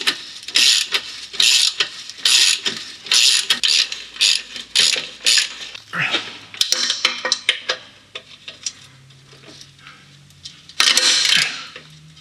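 Hand ratchet clicking in quick repeated strokes as the nuts on a car's exhaust downpipe flange are run up and tightened, with the nut held by a spanner. The ratcheting is steady for about six seconds, drops to a few scattered clicks, and comes back in a short loud burst near the end.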